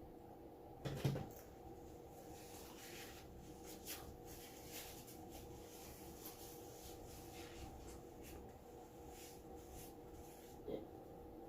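Quiet eating sounds: soft chewing and small mouth clicks while pizza is eaten, over a steady low hum, with one louder thump about a second in.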